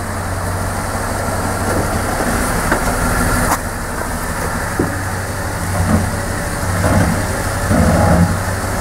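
Pickup truck engine idling with a steady low hum, and one sharp metallic click about three and a half seconds in.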